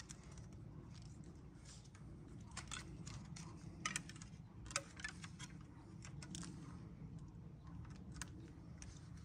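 Quiet background with a steady low rumble and a few faint, scattered clicks and taps.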